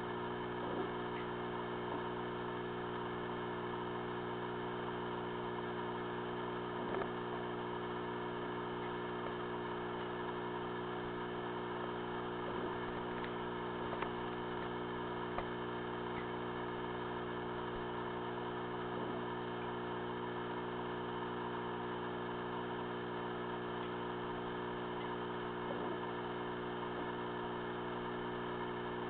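Steady electrical hum of aquarium equipment with an even hiss over it, broken by a few faint ticks.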